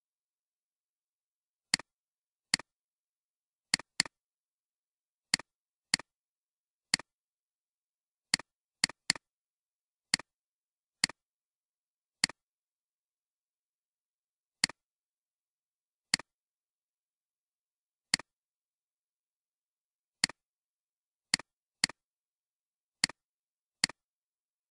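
Computer mouse clicks: about twenty sharp clicks at irregular intervals, each a quick double tick of button press and release.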